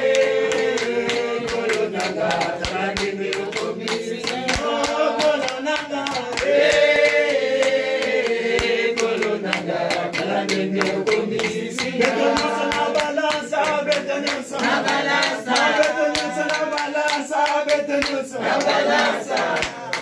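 A group of people singing together with hand-clapping along.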